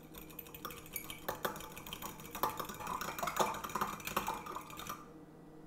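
A metal fork beating an egg in a small bowl: a rapid, uneven run of light clicks and taps of the fork against the bowl, stopping about five seconds in. The egg is being lightly beaten for an egg wash.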